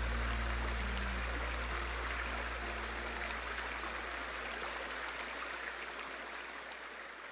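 Running river water, a steady rushing, gradually fading out. A few held notes of background music die away about a second in.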